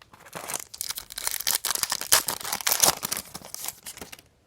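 Trading-card pack wrapper being torn open and crinkled by hand: a stretch of loud crackling and tearing that stops shortly before the end.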